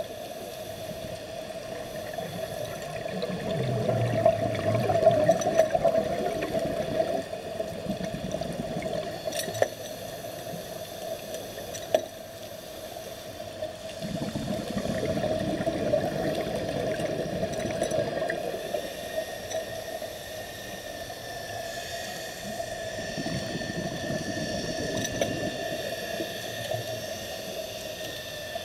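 Underwater sound through a camera: a steady hum with two long stretches of bubbling and gurgling from a scuba diver's exhaled bubbles, a few seconds in and again about halfway, and a couple of sharp clicks.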